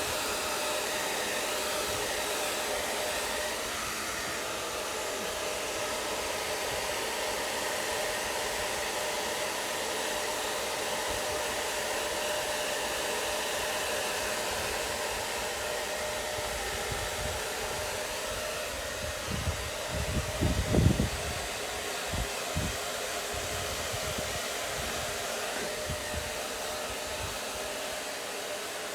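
Hand-held hair dryer blowing steadily, its airflow rushing over a faint steady motor whine. A few low thumps about two-thirds of the way through.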